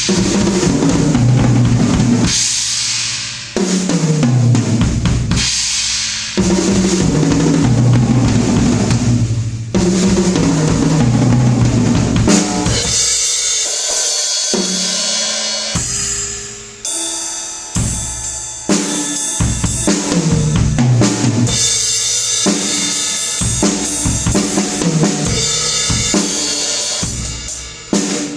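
Music with a drum kit (bass drum, snare and cymbals) over a bass line and other pitched instruments, played loud. The arrangement thins out for a few seconds around the middle, then the full beat returns.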